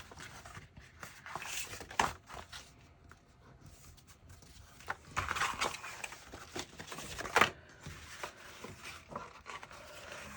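Craft paper and card rustling and scraping as they are handled and an inserted piece is slid in and out of a glued paper pocket. Scattered short rubs and taps, with longer, louder scrapes about five to six seconds in and a sharp one about seven seconds in.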